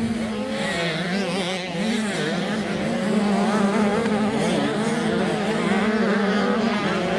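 Several motocross bike engines racing, their pitch rising and falling as the riders work the throttle.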